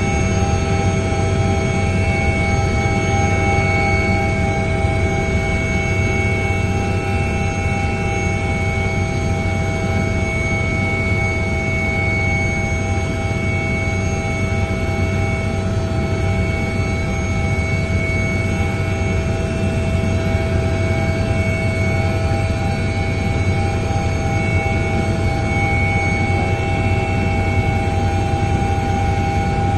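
Helicopter in flight heard from inside the cabin: a steady turbine engine whine, with several high tones over a low drone.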